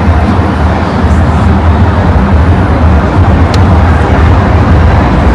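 Steady low rumble of wind on the microphone of a bike-mounted camera while cycling along a city road, mixed with passing road traffic.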